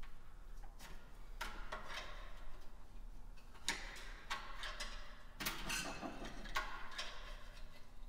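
Irregular small clicks, taps and scrapes, with brief rustling, of a pickup tool and gloved hands working a replacement crankshaft position sensor into its bore on a 6.0L V8 engine block, behind the exhaust manifold.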